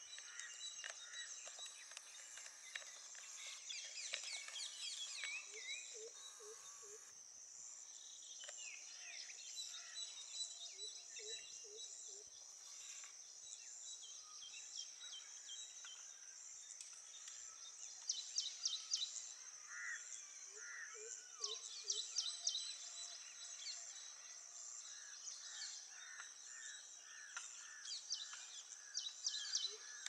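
Several wild birds calling over a steady high-pitched insect drone: quick clusters of sharp high chirps every few seconds, scattered mid-pitched calls, and a low note repeated in groups of about four.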